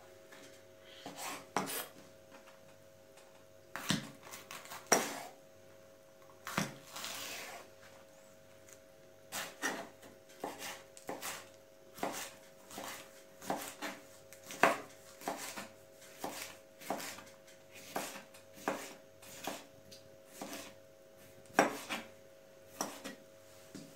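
Kitchen knife chopping a red kapya pepper on a wooden cutting board: sharp, irregular knocks of the blade on the board, roughly one a second, some in quick clusters, with a short pause about a third of the way through.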